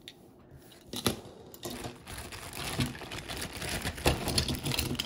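Die-cast toy cars being handled: a sharp click about a second in, then a dense run of light clicks, rattles and rustling as the toy is set down and the next one is picked up.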